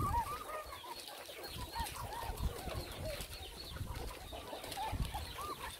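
A steady stream of short, high, squeaky cries from many young animals, several a second and overlapping.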